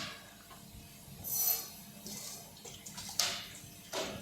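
Water splashing and spraying inside a running Sital SEI dishwasher, with a hissing surge about a second in and two sharper splashes near the end.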